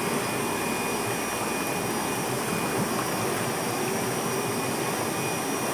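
A machine running steadily with an even whir, with a few faint high steady tones over it.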